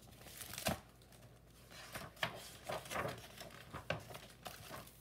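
Faint rustling, crinkling and light clicks of a picture book being handled and its pages turned.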